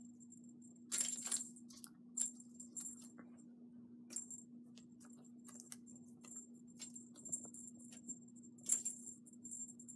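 Small bell on a dangling cat toy jingling in irregular bursts as kittens bat at it, loudest about a second in and again near the end.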